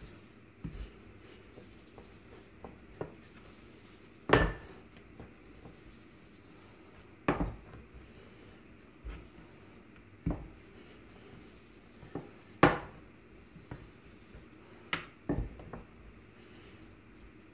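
Hands and a wooden rolling pin working hopia dough on a floured wooden board: about ten short, irregular knocks on the wood, a few of them louder.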